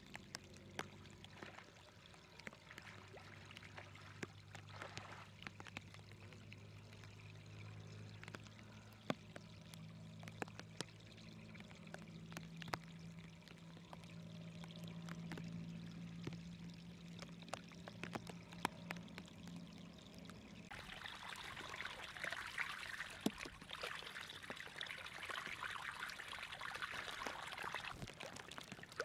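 Muddy water pouring and trickling through a narrow drainage channel, with scattered small clicks and a low steady hum under it. About twenty seconds in the water noise turns suddenly louder and brighter, a close rush of water that lasts until near the end.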